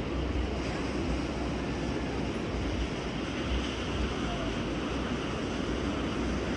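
Steady outdoor rumble and hiss of wind on the microphone and distant ocean surf, with faint traffic of Jeeps driving along the beach below.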